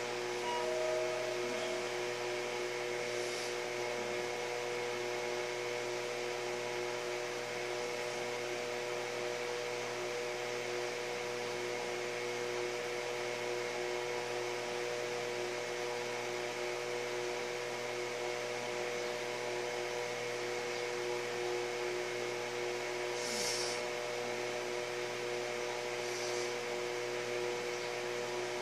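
Steady hum made of several constant tones over an even hiss, with a few faint short hisses about three seconds in and twice near the end.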